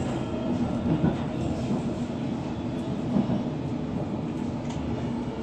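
London Underground Hammersmith & City line train heard from inside the carriage: a steady rumble, with a few faint clicks.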